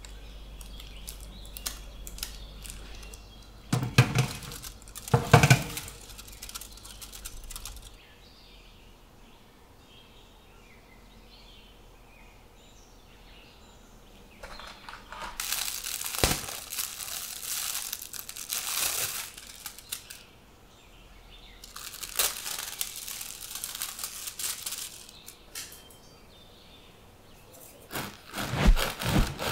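Plastic oven-baking bags crinkling and rustling in long spells, with two loud knocks about four and five seconds in. Near the end a serrated bread knife begins sawing through the crust of a baked wholemeal loaf.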